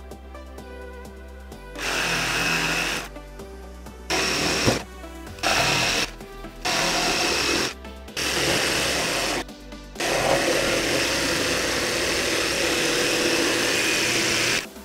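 Ryobi cordless jigsaw cutting birch plywood in short runs, starting and stopping about six times; the last cut runs about four and a half seconds.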